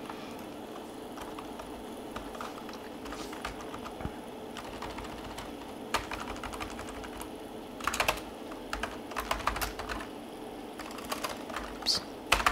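Typing on a computer keyboard: irregular runs of key presses with pauses between them, the busiest stretch of quick keystrokes about eight to ten seconds in, over a faint steady hum.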